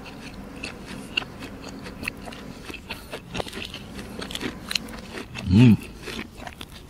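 Close-miked chewing and biting of a fried croquette, with many small wet clicks and crunches. About five and a half seconds in, the eater makes one short, loud voiced hum.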